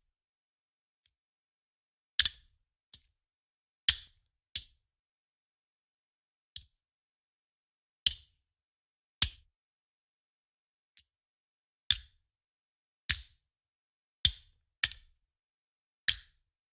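Handgun magazine thrown down, sound effect: about a dozen sharp clacks at uneven intervals, some loud and some faint, each dying away quickly, with silence in between.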